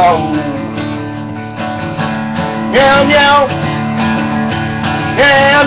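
Acoustic guitar strumming chords, with a voice singing two short sung phrases, one about three seconds in and one near the end.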